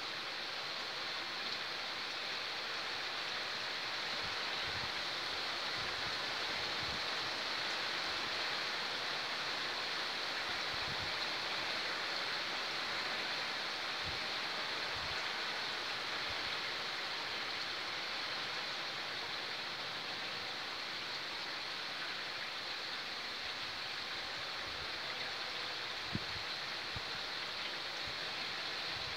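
Heavy rain falling steadily, with a few louder drips landing now and then.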